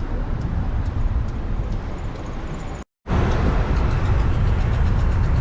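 Steady low rumble of a moving vehicle, broken by a brief dropout to silence about three seconds in where the recording is cut.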